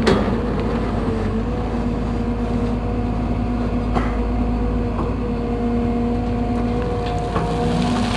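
Case CX210B excavator running steadily with its rebuilt main hydraulic pump, a smooth, even hum with a few light clicks. The growl the machine had before the pump overhaul is not there.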